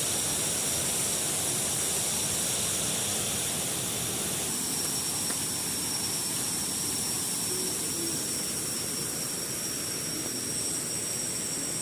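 Small waterfall rushing steadily, with a thin, steady high tone above the rush.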